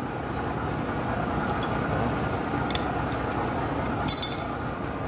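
Steady background rumble with a few light metallic clinks as a steel swivel and shackles are handled.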